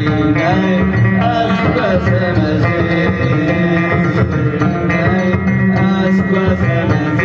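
Amazigh band music played loud through the sound system: a melodic singing voice over sustained instrumental tones and drums.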